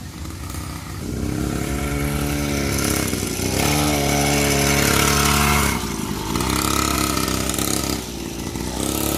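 Small two-stroke engine of a 49cc pocket dirt bike running and revving as it is ridden, its pitch rising and falling with the throttle. It is loudest as the bike passes close, about four to five and a half seconds in.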